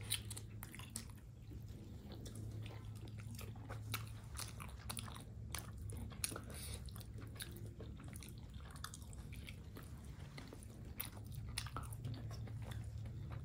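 Close-up mouth sounds of someone chewing and biting into steamed chicken momos: irregular wet smacks and small clicks, over a steady low hum.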